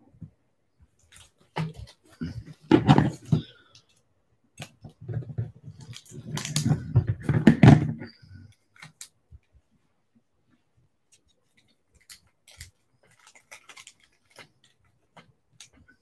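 Plastic-bag trading card pack being handled and its top cut off: crinkling plastic with knocks, in two clusters about 2 and 6 seconds in. After them come faint, scattered clicks of cards being handled.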